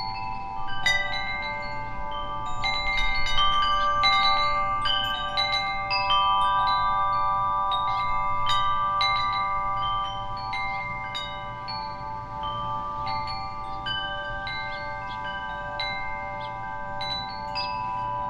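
Wind chime ringing: a flurry of strikes starts about a second in and is loudest a few seconds later, then thins out to occasional notes. Each note rings on for several seconds, so the tones overlap.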